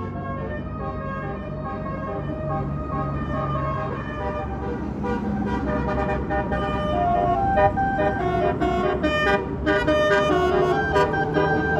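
Tour bus's telolet basuri musical air horn playing a melody of stepped notes over the low rumble of the bus. It grows louder in the second half.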